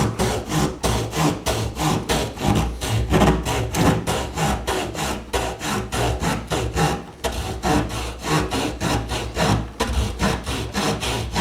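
Victorinox Farmer X pocket-knife wood saw cutting through a tree branch in quick, even back-and-forth strokes, about four rasps a second. The blade is cutting freely, going surprisingly well.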